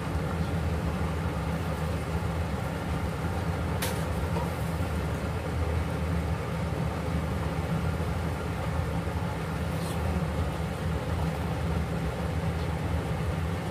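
Steady low rumble of kitchen machinery running, even in level throughout, with a couple of faint light clicks, about four and ten seconds in.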